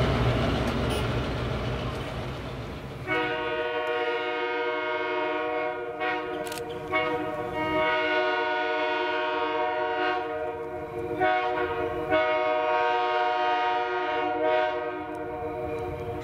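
A diesel locomotive rumbling past on the rails, fading. Then, from about three seconds in, the air horn of GP38 locomotive 7706 sounds a chord of several notes in separate blasts, long, long, short, long, the pattern blown for a grade crossing.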